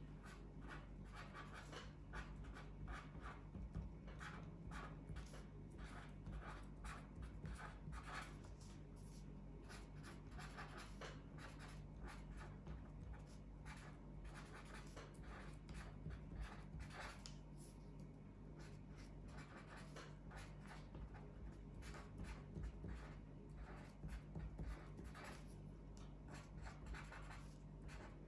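Writing by hand on paper: faint, irregular scratching strokes coming in quick runs with short pauses between them.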